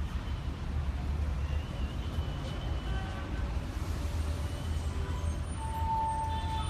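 Steady low rumble of vehicles and street traffic, with a brief high steady tone a little over five seconds in.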